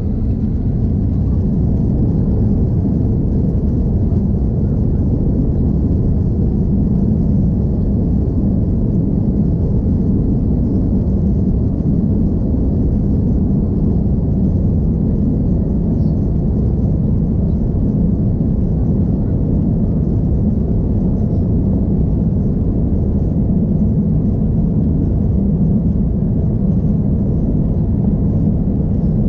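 Cabin noise inside an Airbus A330-200 moving on the ground: a steady, deep rumble of the jet engines and rolling wheels heard through the fuselage. It steps up in level at the very start, then holds even.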